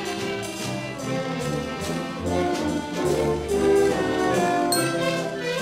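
Orchestra playing a waltz, the violins bowing.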